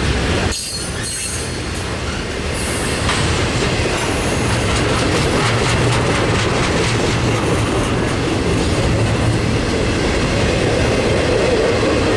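Intermodal freight cars loaded with shipping containers rolling steadily past: a continuous rumble and rattle of wheels, trucks and couplers, with clicks of wheels over rail joints and a faint wheel squeal near the start.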